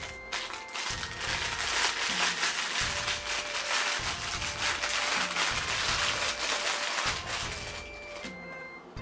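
Crinkling and rustling of plastic or paper packaging being handled and opened, a dense crackle that fades out about three-quarters of the way through, over background music.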